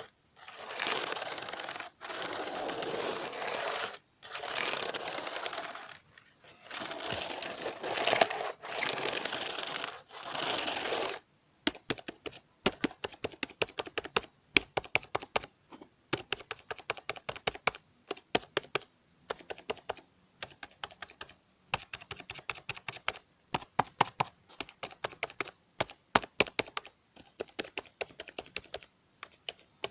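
Computer keyboard worked for ASMR: for about the first eleven seconds, dense rattling bursts about two seconds long with short pauses, then separate key clicks in quick runs.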